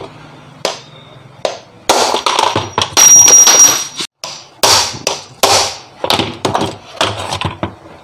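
Hammer blows on a steel shaft used as a drift to knock the worn centre bush out of a plastic washing-machine pulsator, loudest from about two to four seconds in with a brief metallic ring. These are followed by knocks and clatter as the plastic pulsator is handled and turned over on a wooden bench.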